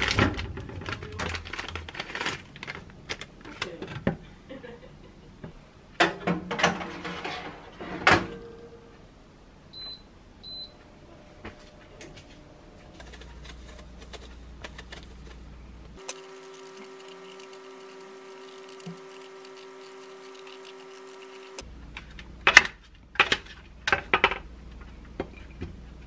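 Kitchen handling sounds: plastic bags crinkling and rustling as cookies are unwrapped, then two short electronic beeps. A steady hum follows for several seconds, and near the end a few sharp clicks as an apple is cut up with a knife onto a stainless-steel tray.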